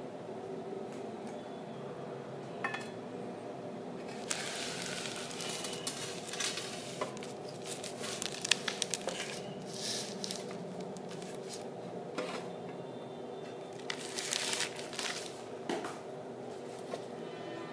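Glass plates handled in a stainless-steel tray of water: irregular clinks, taps and scraping, with a sharp click about halfway through, over a steady low hum.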